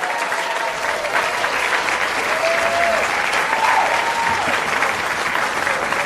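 A crowd applauding and cheering, with a few voices whooping over the steady clapping.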